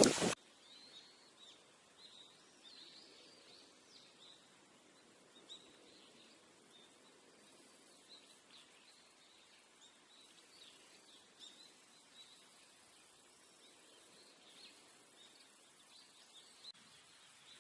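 Small birds chirping faintly, many short high calls scattered over quiet outdoor ambience. A loud rush of noise cuts off abruptly at the very start.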